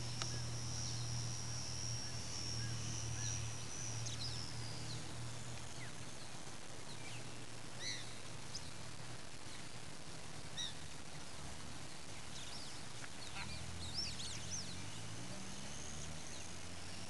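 The small Speed 300 electric motor of a GWS Beaver model plane whines steadily overhead, then fades out about four and a half seconds in. After that, waterfowl call a few times.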